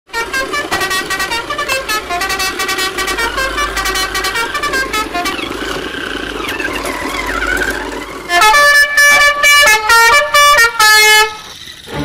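Horn sound effects: a fast run of short pitched beeps, a wavering sliding tone in the middle, then about five loud, longer horn honks at changing pitches near the end.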